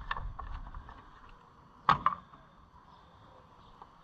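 Homelite Super XL chainsaw being worked by hand while it will not start: a run of light clicks over a fading low rumble, then one sharp knock about two seconds in. The engine does not catch and run.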